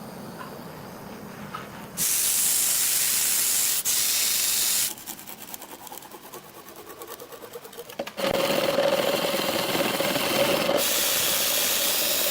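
Wood lathe spinning a bamboo workpiece, with loud hissing as the work is cut or sanded, in abruptly starting and stopping stretches. Between them there is a quieter run of rapid ticks, and a steady whine comes in during the last loud stretch.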